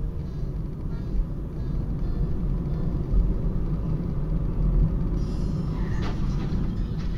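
Steady low rumble of a car's engine and tyres on the road while driving, heard from inside the cabin.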